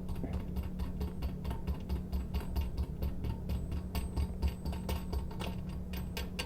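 Quick, irregular small clicks and ticks of a nut being spun by hand onto a toilet tank-to-bowl bolt against its washer, over a steady low hum.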